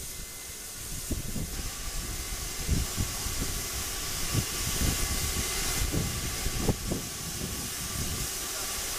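Narrow-gauge steam locomotive No. 190 standing with steam hissing steadily, with scattered low thumps.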